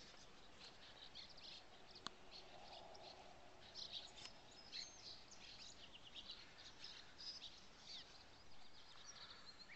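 Faint chirping of many small birds, short high calls scattered throughout, with a single sharp click about two seconds in.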